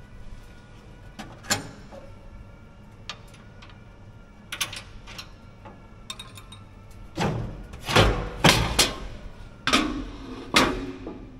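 Metal knocks and clatter from the sheet-metal engine side panel of a John Deere 650H dozer being unfastened and lifted off: a few scattered clicks and taps at first, then a burst of louder clangs and rattles over the last few seconds as the panel comes free.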